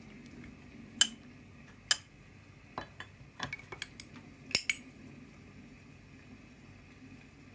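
A Zorro flip-top lighter (a Zippo lookalike) being handled, its metal case and parts clicking and clinking in a quick irregular series over about four seconds, the sharpest clicks about a second in, two seconds in, and around the middle.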